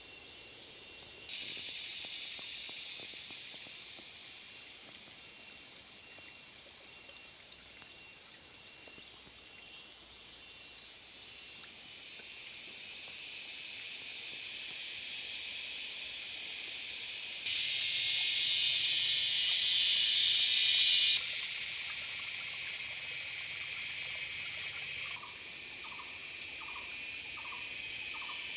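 Forest insects: a steady high buzzing chorus with regular short chirps, jumping abruptly in level a few times. It swells to a louder, higher drone for a few seconds past the middle, and a short run of lower, evenly spaced calls comes near the end.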